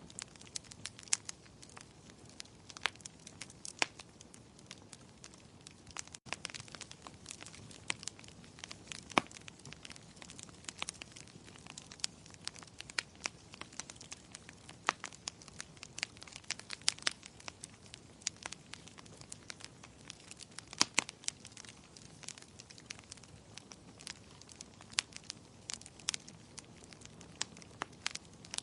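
Wood fire crackling, with irregular sharp pops and snaps all through, over a soft steady hiss of rain. The sound drops out for a moment about six seconds in.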